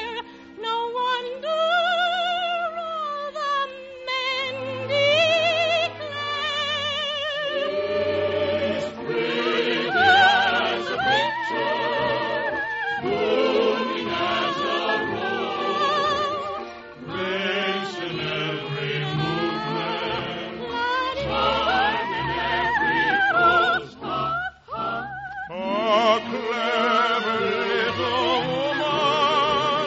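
Operetta song performed by singers with wide vibrato over orchestral accompaniment, with several voices joining in as a choir.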